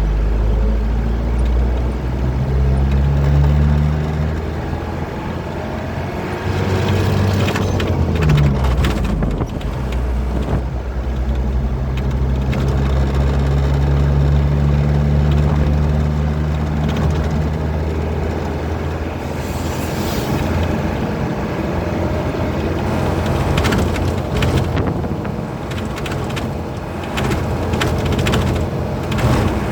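Truck engine running under way with tyre and road noise, its low hum steady, then shifting in pitch about a quarter of the way in. Spells of rattling and clattering come in about a quarter of the way in and again near the end.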